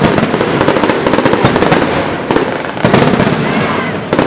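Fireworks going off: a dense, continuous crackle of many small bursts, with heavier booms about two and three seconds in.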